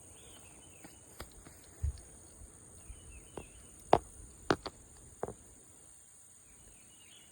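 Steady high-pitched insect chorus, with a few faint bird chirps and several sharp clicks and a soft thump from close by.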